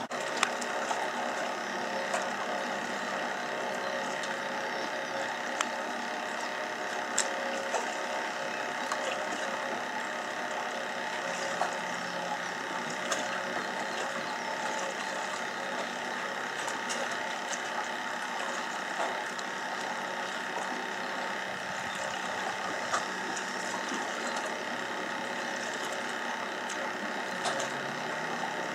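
A steady mechanical hum made of several even tones, with short sharp clicks scattered over it every second or few.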